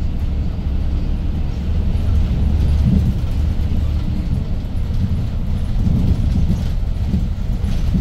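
Inside the cabin of a 2012 Hyundai New Super Aerocity city bus as it drives along. Its C6AE CNG engine runs with a steady, low rumble under road noise.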